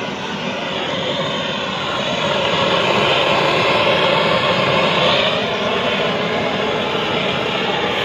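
Gas blowtorch flame running steadily, growing louder about two seconds in, as it heat-shrinks a red breakout boot onto high-tension cable cores.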